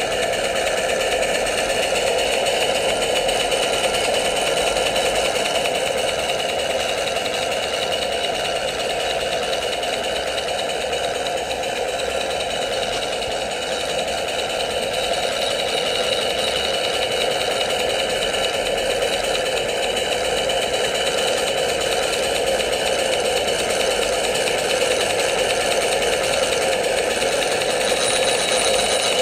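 Model Dolbeer steam donkey running steadily as its winch hauls a log in on the cable: a fast, even mechanical clatter that holds the same pace throughout.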